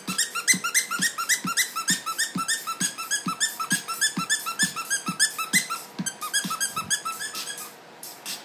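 Squeaker inside a Lamb Chop plush squeak toy squeezed by hand over and over, about three or four short squeaks a second, stopping shortly before the end.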